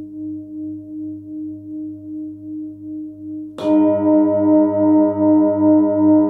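Large 30.6 cm hand-hammered Nepalese singing bowl, its fundamental about 99 Hz (G), ringing with a steady wobbling beat of about two to three pulses a second. A little past halfway it is struck with a padded mallet, and the ring jumps louder and carries on pulsing.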